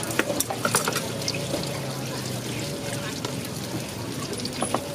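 Wooden pestle stirring and scraping thick peanut sauce in a mortar, with a few sharp knocks and clicks in the first second, over a steady sizzle of frying.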